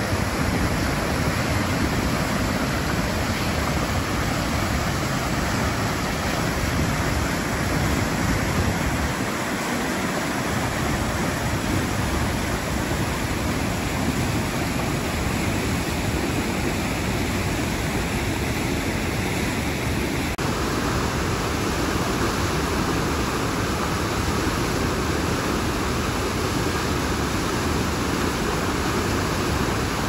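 Maggia river water rushing through a narrow rock gorge and pouring over small cascades: a steady, full rush of whitewater. The tone shifts slightly about two-thirds of the way through.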